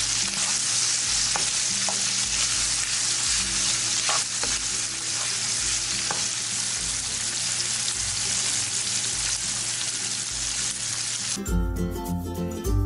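Shrimp sizzling steadily in oil in a nonstick frying pan, stirred with a wooden spatula that taps the pan lightly a few times. Music comes in near the end.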